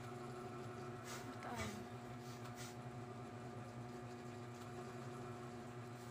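Steady mechanical hum made of several fixed low tones. About a second in there are a few brief rustling noises, one with a quick falling pitch.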